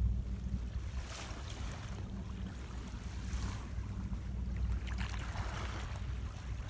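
Small waves washing up on a sandy beach, a soft swell of surf every second or two, over a steady low rumble of wind on the microphone.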